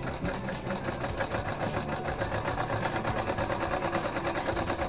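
Domestic sewing machine running steadily, the needle stitching along a fabric edge with a rapid, even ticking over a low motor hum.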